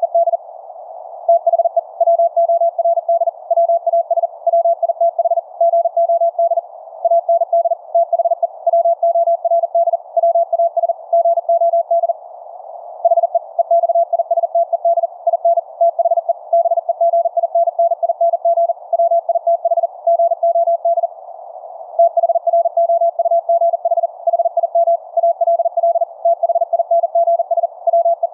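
High-speed Morse code (QRQ CW): a single tone keyed on and off very rapidly, over a narrow band of receiver hiss between the dits and dahs. It is the Elecraft K3S's 630-meter CW transmission heard on a C.Crane Skywave SSB radio in LSB, tuned to the signal's 4th harmonic. The keying breaks off briefly twice.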